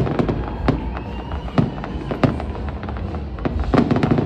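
Aerial fireworks going off in quick, irregular succession: a steady run of sharp bangs and crackles, with the loudest single bang a little past halfway and a dense cluster of bangs near the end.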